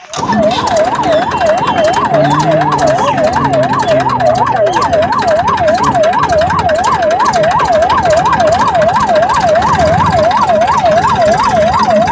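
Electronic siren sounding in a fast yelp, its pitch rising and falling about three times a second, steady and loud over a low, noisy rumble.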